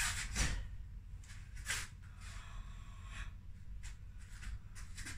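Faint, brief swishes of a taekwondo uniform and breaths as the moves are performed, several scattered through, over a steady low room hum.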